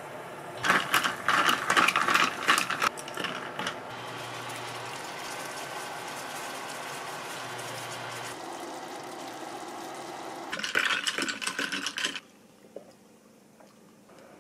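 Ice cubes clinking and rattling in a tall glass as an iced drink is stirred, then a steady hiss for a few seconds, and a second short burst of clattering.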